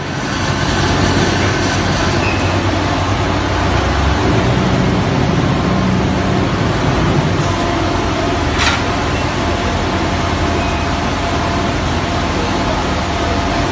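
Pallet-free concrete block making machine line running: steady, loud machine noise, with a single sharp knock a little past the middle.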